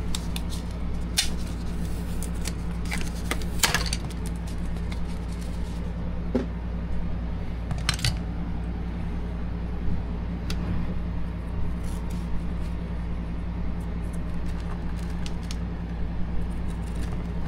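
Tape being peeled and stiff yellow plastic insulating plates being worked off a LiFePO4 battery's cell pack by hand: scattered crackles and sharp clicks, over a steady low hum.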